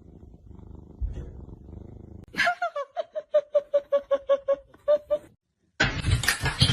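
A cat giving a quick run of short, even-pitched calls, about five a second, for nearly three seconds. Near the end a louder, noisy sound cuts in.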